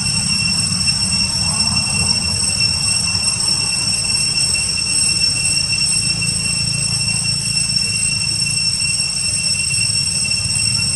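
Steady high-pitched drone of insects, in several unchanging tones, over a continuous low rumble.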